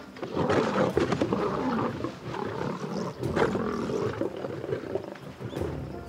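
Lions snarling and growling in a short scuffle as a young lioness confronts a big male, loudest in the first second and again about three and a half seconds in.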